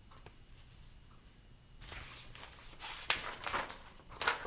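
Paper rustling and crackling as a picture book's page is turned, starting about two seconds in.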